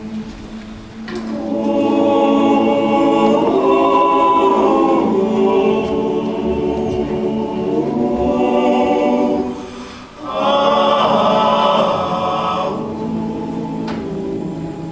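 Choir singing long held chords without words, with a brief break about ten seconds in before a final swelling chord that then softens.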